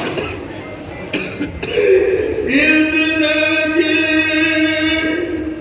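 A man's voice chanting a collective supplication, holding one long, nearly level note for about three seconds from about halfway in. Before it come irregular, indistinct voice sounds from the gathering.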